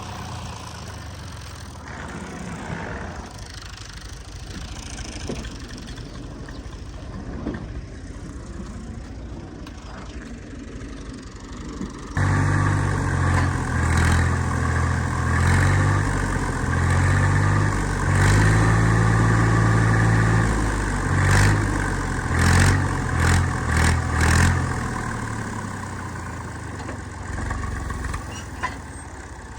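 Tractor engine running at a low idle, then revving up sharply about twelve seconds in and running hard with its pitch stepping up and down and several surges, before easing back near the end.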